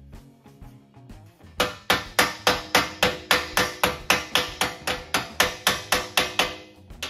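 Hand hammer striking the sheet-metal lip of a Ford Model A cowl panel clamped in a bench vise, folding the excess metal over to close a gap. Steady blows at about four a second, starting about a second and a half in and stopping shortly before the end, with one more blow near the end. Quiet background music runs underneath.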